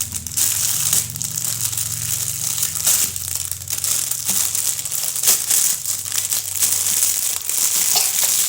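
Plastic packaging crinkling and rustling continuously as a toy package is unwrapped and opened.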